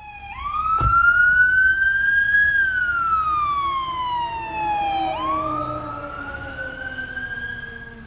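Fire engine siren wailing: the pitch climbs, then falls slowly over a few seconds and climbs again about five seconds in. A single sharp click comes just under a second in.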